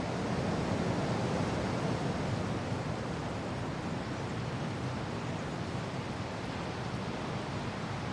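Wind and rain: a steady, even rushing noise that swells slightly in the first couple of seconds.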